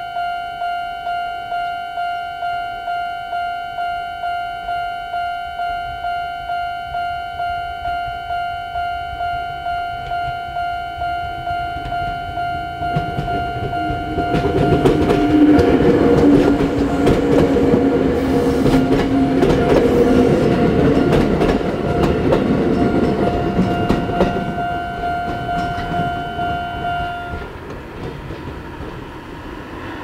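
Old-type Japanese level-crossing warning bell ringing steadily, about twice a second. About halfway through, a Chichibu Railway 6000-series express train rolls over the crossing with clattering wheels and drowns the bell, then fades away. The bell stops near the end as the crossing clears.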